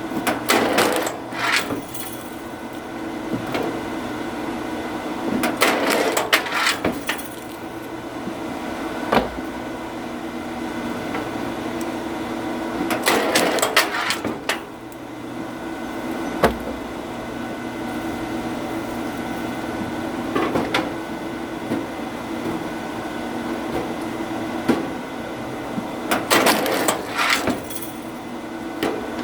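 Oak firewood cracking and splitting apart in four separate bursts, each lasting a second or so, with a few single sharp knocks in between. A machine hums steadily throughout.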